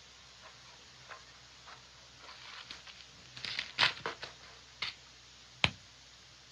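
Faint scattered clicks and rustles, bunching up a little past halfway, then one sharp, loud click near the end.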